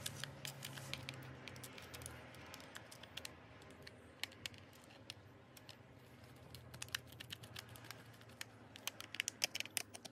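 Light irregular clicks and taps of a toy solar windmill's plastic base and motor box being handled and screwed back together, coming thicker and faster near the end.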